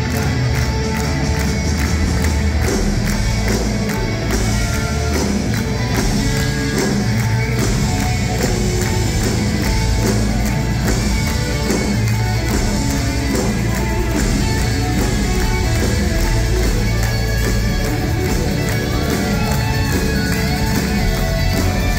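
Live rock band playing loud hard rock, electric guitars over bass and drums, recorded from within the audience.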